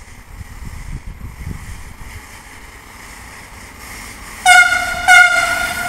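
Freight train hauled by an electric locomotive approaching with a rising rumble. About four and a half seconds in, the locomotive sounds its horn in two short blasts, the second a little longer.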